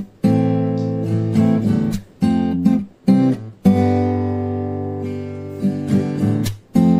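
Background music: strummed acoustic guitar chords with short breaks between them. About halfway through, one chord is held and slowly dies away.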